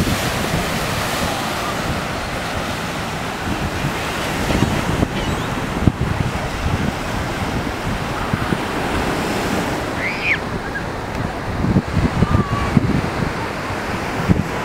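Surf breaking on the beach as a steady wash, with wind buffeting the microphone in low gusty thumps. A brief high chirp sounds about ten seconds in.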